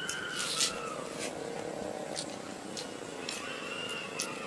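Short wet clicks and smacks of people chewing food eaten by hand, with faint, long, drawn-out animal calls in the background, one in the first second and another near the end.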